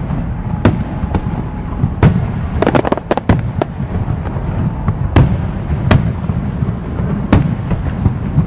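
Aerial firework shells bursting: a dozen or so sharp bangs at uneven intervals, with a quick cluster of cracks about three seconds in, over a steady low rumble.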